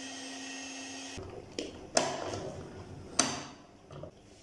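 Electric stand mixer beating cake batter with a steady motor whine. The whine cuts off about a second in. Then come a few sharp clicks and knocks, loudest twice, as the mixer is switched off and its beater head is tilted up out of the bowl.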